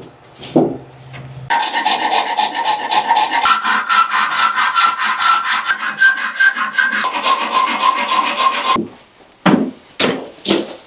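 A rasp being worked back and forth over a deer's cannon bone clamped in a vise, shaping it into an arrowhead. After a couple of knocks it runs in fast, rough strokes for about seven seconds, with a ringing tone under them that shifts pitch twice. Near the end come a few slower, separate strokes.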